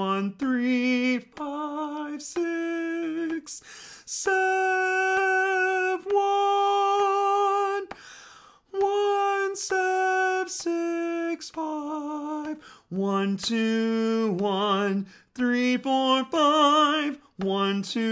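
A man's tenor voice sings a sight-reading melody in G major unaccompanied, naming each scale degree by number ("1, 3, 3, 2, 1..."). The notes are held and step up and down with short breaks between them. The top notes up to high 1 are taken in falsetto, and the singer flips between chest voice and head voice.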